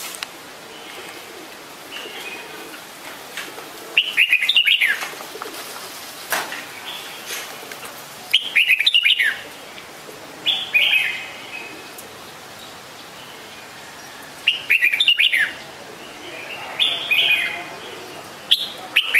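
Red-whiskered bulbul singing: short phrases of quick chirpy notes, repeated about every two to four seconds, six times.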